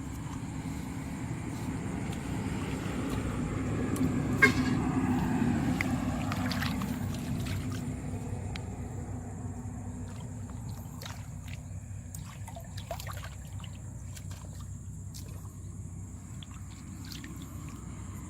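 An engine passing by, growing louder to about five seconds in with a falling pitch, then fading; a sharp click near its loudest point.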